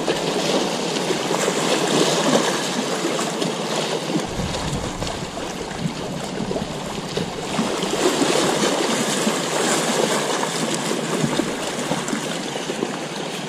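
Small waves lapping and splashing against shoreline rocks: a steady wash of water that swells and eases.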